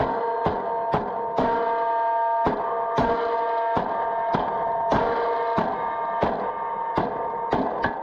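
Hammer striking over the steel locking tabs on the bolt of a disc harrow gang, a string of sharp metal strikes about two a second at an uneven pace. Each strike sets the steel disc blades ringing, and the ringing carries on between blows.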